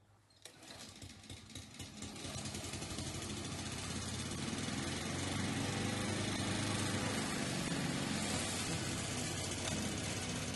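Push lawn mower with an Arnold power rake dethatching blade starting up about half a second in, running unevenly for a second or two, then settling into a steady, loud run with the blade set at its lowest height, its tines tearing into scalped St. Augustine grass stolons.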